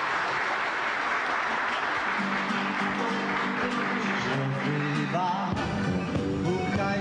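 Applause over guitar-led music. The clapping thins out over the first few seconds, and a bass line comes in about five and a half seconds in.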